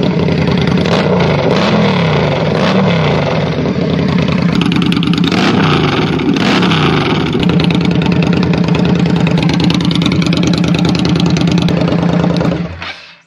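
Indian Scout Bobber's V-twin running loud through GP shorty exhaust mufflers, blipped several times so the revs rise and fall, then settling to a steady idle. It is echoey, in a small enclosed space, and cuts off sharply just before the end.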